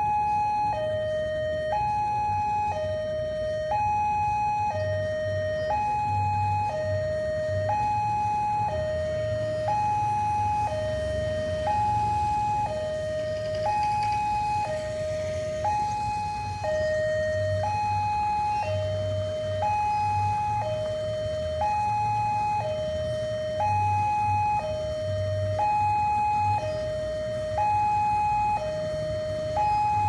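Level-crossing warning siren, newly installed, sounding as a train approaches. It switches steadily between a high and a low tone, each held about a second.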